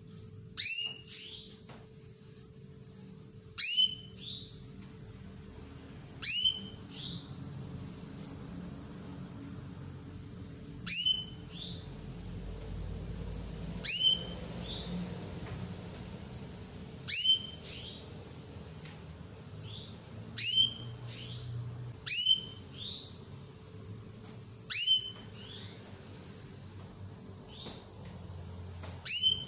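Female domestic canary giving single call notes, each a short high tweet sweeping quickly downward, about every three seconds: the call used as a lure to set male canaries singing. A steady high pulsing chirp, about four a second, runs underneath.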